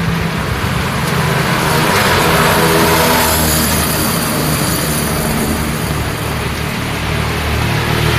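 Road traffic in the rain: vehicle engines keep up a steady low hum, and one vehicle passes between about two and four seconds in, the hiss of its tyres on the wet road swelling and fading.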